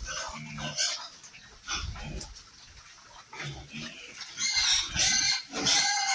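Pigs grunting and squealing in short separate calls, with a run of loud, shrill squeals in the last second and a half.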